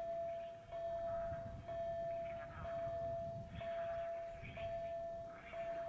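Level crossing warning bell ringing: one steady electronic tone that breaks and restarts about once a second, six times over.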